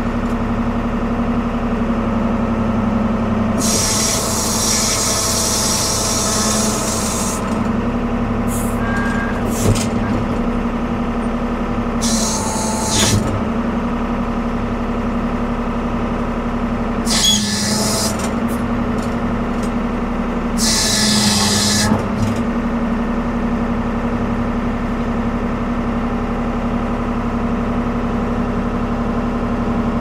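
Ford 550 backhoe's diesel engine running at a steady speed, with four short bursts of hiss over it.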